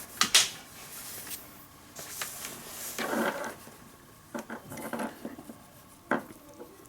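Small metal clicks and rubbing from radio cable connectors being handled and fitted, with a sharp click just after the start and another about six seconds in.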